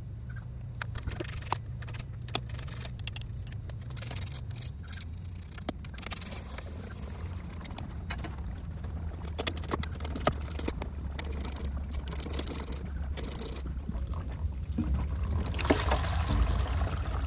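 Irregular metallic clicks and clinks of a socket wrench on the bolts holding the motor to a Waterway SMF pool pump's housing as they are worked loose, over a steady low hum.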